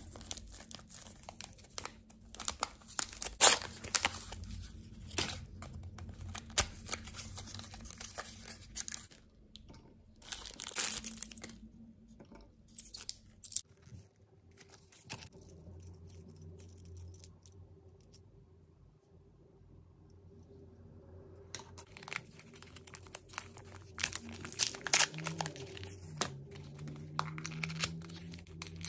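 Toy packaging being torn open and crinkled by hand, in crackling bursts, with a quieter stretch about halfway through.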